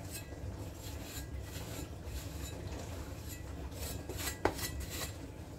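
A steel kitchen-knife blade being stropped on a cotton kitchen towel after sharpening, to clean off the burr: a series of soft rubbing strokes along the cloth, with one sharp click about four and a half seconds in.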